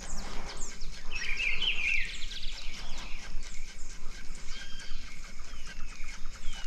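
Birds calling: many quick falling whistles, with a wavering trill about a second in that lasts about a second.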